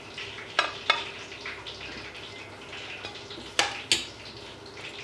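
Fries being laid into a ceramic serving dish with a fork and spatula, the utensils clinking sharply against the dish four times, in two pairs, over a faint steady hiss.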